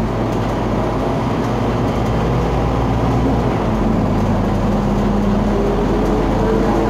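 Scania K250UB city bus's biodiesel engine running under way, its pitch shifting as the bus changes speed. A higher whine rises near the end.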